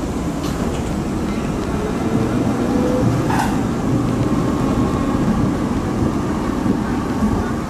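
Vintage HTM PCC trams passing close by: a steady rumble of wheels on rails, with a faint rising motor whine and a brief sharp click about three seconds in.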